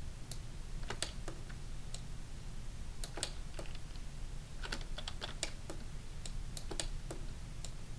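Scattered, irregular clicks of a computer keyboard, with a low steady hum underneath.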